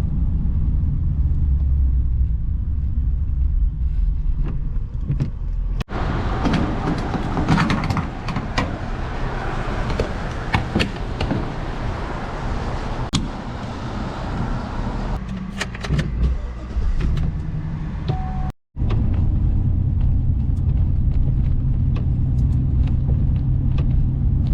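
Pickup truck driving, its low engine and road rumble heard from the cab. About six seconds in it gives way to a stretch of hissier noise with scattered clicks and knocks, then a steady low engine hum returns for the last several seconds.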